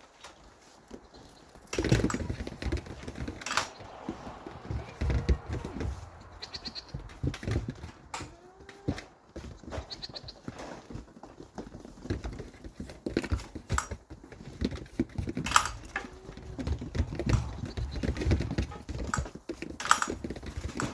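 A few short bleats from farm livestock amid irregular knocks, thuds and rustling.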